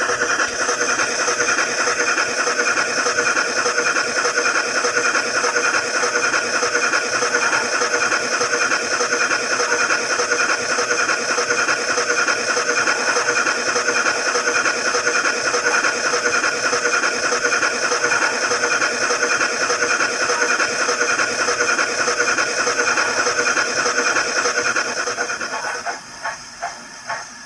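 A steam-locomotive sound decoder plays through a Hornby A4 model's small speaker: a fast, steady run of exhaust beats and steam hiss. A little before the end it drops away into a few separate puffs.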